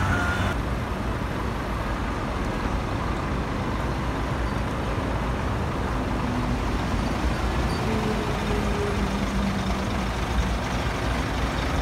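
Steady roadside traffic noise with vehicle engines running, strongest in the low rumble. A faint engine drone comes in about halfway.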